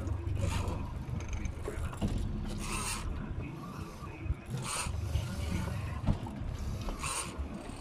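Heavy big-game fishing reel cranked in short scratchy bursts, about four times roughly two seconds apart, as the rod is pumped against a hooked bluefin tuna, over a steady low rumble.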